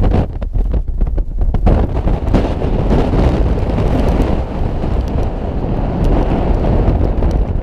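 Wind buffeting the microphone: choppy gusts at first, then a steady rushing rumble from a bit under two seconds in.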